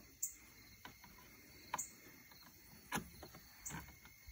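A few faint, irregular clicks and taps, about six over four seconds, from hands working plastic parts in a car's under-hood fuse and relay box.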